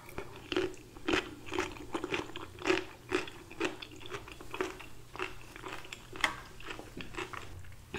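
Close-miked chewing of crunchy cucumber and red onion salad: a steady run of crunches, about two a second.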